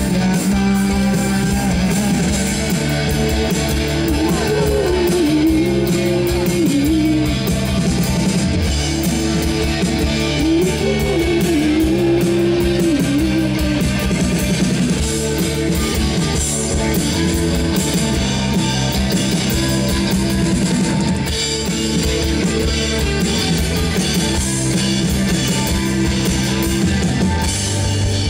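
A live rock band playing: electric guitar, bass guitar and a Pearl drum kit, at a steady full level throughout.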